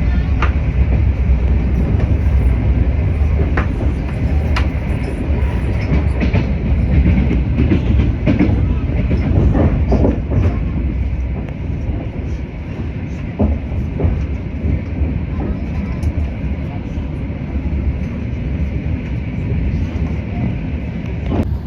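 Steady low rumble of a moving vehicle, with scattered sharp clicks and knocks in the first half that thin out after about twelve seconds.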